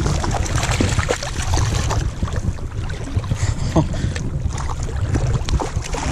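A hooked rainbow trout splashing and thrashing at the water's surface close by, in repeated short splashes over a steady low rumble.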